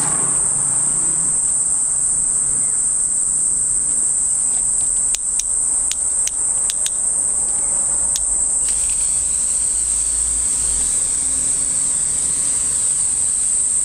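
A steady, high-pitched insect chorus, with a few sharp clicks around the middle. After about nine seconds the hiss of a garden hose spray nozzle wetting the panels joins in.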